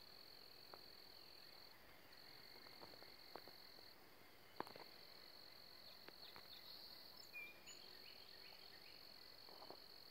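Faint, continuous high-pitched insect trill that breaks off briefly a few times, with a few scattered faint clicks.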